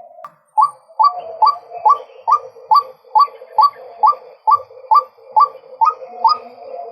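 Male white-breasted waterhen calling: a steady run of short, upward-hooked notes repeated about twice a second.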